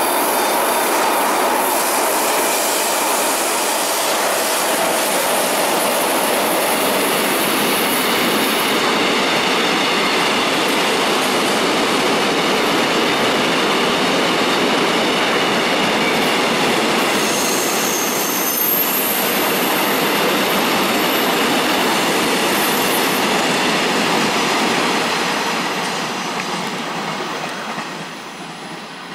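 Freight train of bulk tank wagons behind a Korail electric locomotive running past at speed: a steady loud rush and rattle of steel wheels on the rails, with a brief high squeal about 17 seconds in. The sound fades near the end as the last wagons draw away.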